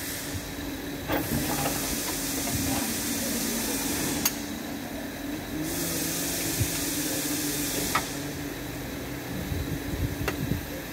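A hiss that starts, breaks off briefly and stops again over a steady low hum, with a few sharp metallic clicks from a hand tool working at the transmission drain plug.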